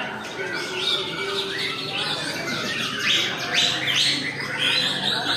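Several caged white-rumped shamas singing at once: a dense, overlapping chorus of quick chirps, whistles and trills with no break.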